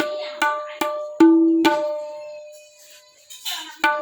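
Tabla struck five times in quick succession, each stroke ringing at the same clear pitch; the ring dies away, and one more stroke comes near the end.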